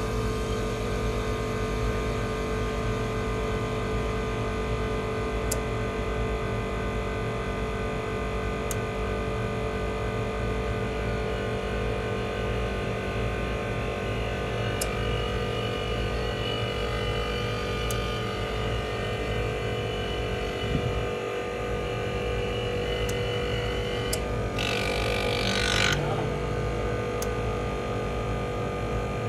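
Actron air-conditioner outdoor unit with a digital scroll compressor running, a steady hum with several held tones, and a short hiss near the end.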